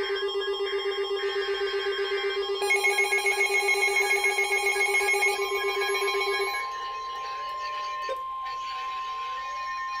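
Weather radios sounding their alarm for a Severe Thunderstorm Warning: a fast-pulsing beep, joined by a second, higher pulsing alarm about three seconds in. Both cut off about six and a half seconds in, leaving the steady single-pitch warning alarm tone of the NOAA Weather Radio broadcast, which sounds just before the spoken warning message.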